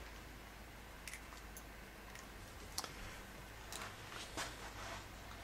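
Faint clicks and scrapes of a meter's test probe touching the terminals of a burned-out compressor, checking the windings for a short to ground. The clicks come scattered, a few apart, over a low steady hum.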